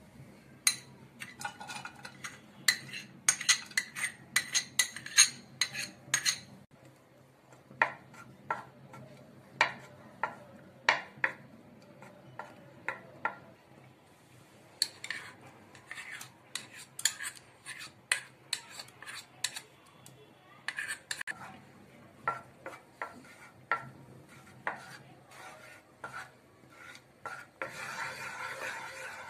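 A metal spoon and a wooden spoon clink, tap and scrape against a non-stick frying pan in clusters of sharp clicks while butter is melted in it. Near the end this becomes a steady scraping as cream is stirred round the pan.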